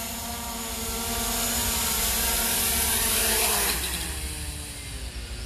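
Small quadcopter drone's propellers whining as it comes down to land, growing louder, then the motors spin down with a falling pitch about four seconds in.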